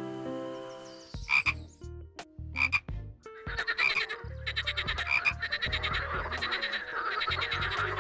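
Piano music ends about a second in, then frogs croak: a few separate croaks, then from about halfway a dense chorus of fast, pulsing croaks.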